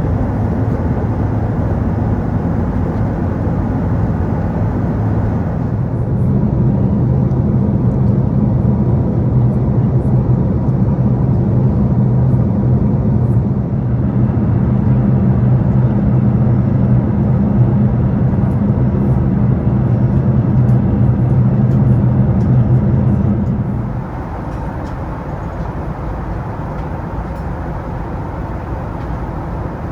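Steady rumble and rush of an Airbus A380 with Rolls-Royce Trent 970 engines, heard from inside the cabin, with a low engine hum running through it. It grows louder and fuller about six seconds in, then drops back to a quieter rush at about 24 seconds.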